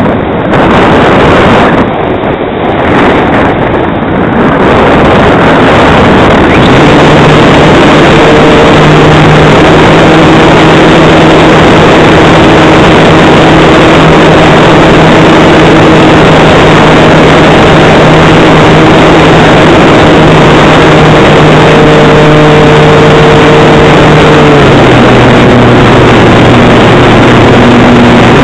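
Loud wind rushing over the onboard camera microphone of a Calypso RC glider in flight. From about seven seconds in, a steady hum runs under it, dropping in pitch briefly near the end.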